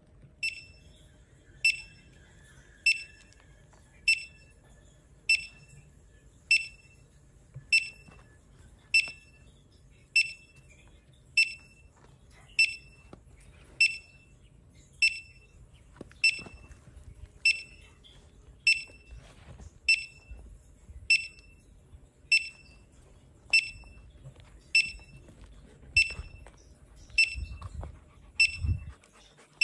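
Handheld metal detector beeping: a short, high-pitched beep repeats evenly about every 1.2 seconds, some two dozen times. A few low thumps come near the end.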